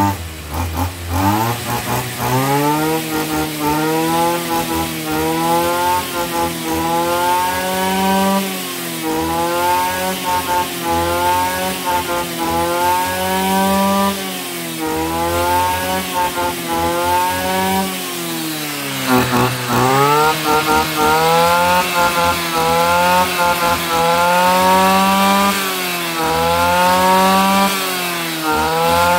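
Tanaka CB2700S brush cutter's 27cc two-stroke engine revved hard and let off again and again, its pitch climbing and falling every second or two. About two-thirds of the way in it drops almost to idle before climbing again, and it holds high near the end. The quick climb on each blip shows strong throttle response.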